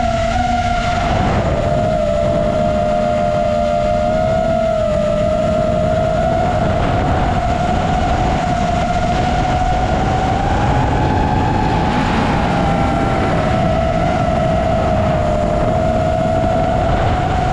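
FPV quadcopter motors and propellers whining at a steady throttle, the pitch wavering slightly as the throttle changes, over a constant rush of wind and propeller wash.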